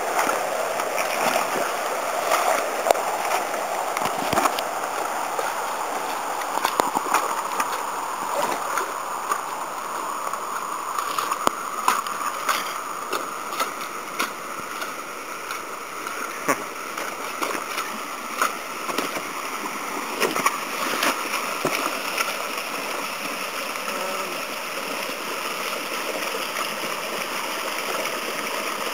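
Creek water rushing steadily over boulders, with scattered short knocks and splashes that come more often in the first half.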